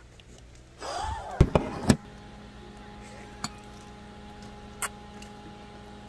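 About a second in, a short, loud swooping sound with two sharp clinks; after that, the steady low hum of a small portable electric fan's motor, with a few faint clicks.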